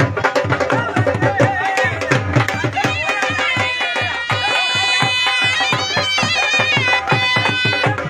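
Background folk music: a fast hand-drum rhythm under a sustained, reedy wind melody.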